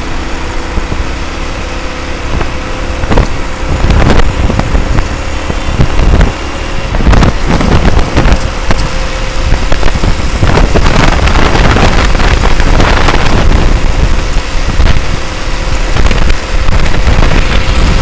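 Wind buffeting the microphone of a moving two-wheeler, loud and gusty, getting stronger about four seconds in, with a steady engine hum underneath.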